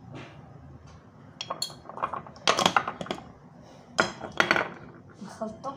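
Metal spoon clinking and scraping against a glass bowl while mashed potato is stirred, with a run of sharp clinks through the middle.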